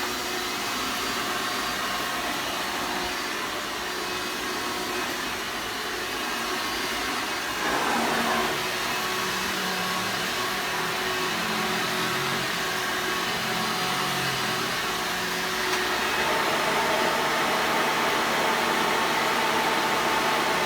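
Hoover Soft and Light soft-bag upright vacuum cleaner running steadily, a constant motor and airflow hum. Its sound shifts and gets slightly louder about eight seconds in and again near the end.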